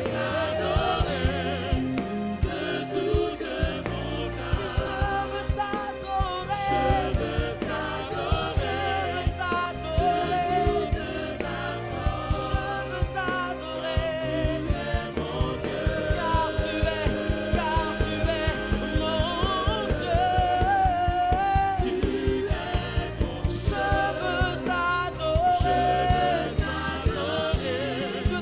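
Gospel worship music: voices singing a melody with vibrato over a band with a steady beat.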